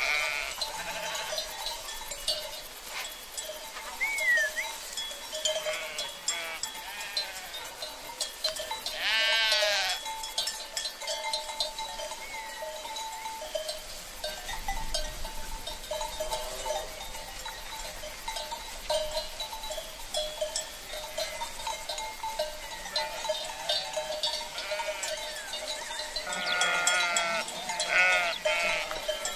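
Sheep bleating: one loud, wavering bleat about a third of the way in, then several more bleats close together near the end, with fainter calls in between.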